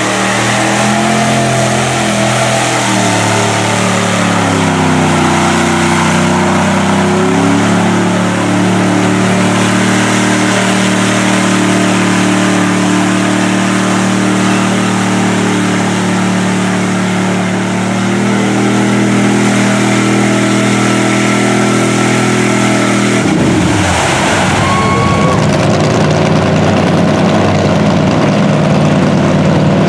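A lifted Chevy mud truck on tractor tires, its engine run hard through a mud pit: the engine note climbs in pitch over the first few seconds, then holds at high revs. About three-quarters of the way through it cuts to another truck's engine, rougher and mixed with a rush of noise.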